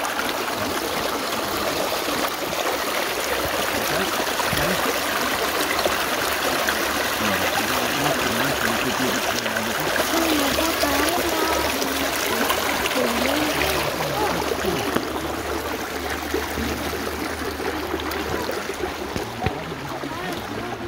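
Shallow stream running and trickling over rocks close by, a steady rush of water.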